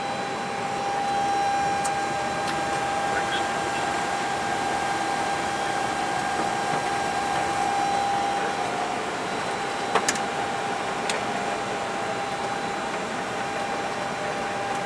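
Steady cockpit ambient noise of an Airbus A321 on the ground with its engines running: air-conditioning and fan hiss with a thin steady whine. There are two sharp clicks about ten seconds in.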